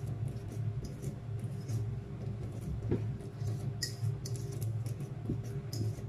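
A fork mashing ripe bananas in a stainless steel bowl: irregular scrapes and clicks of the tines against the metal, over a steady low hum.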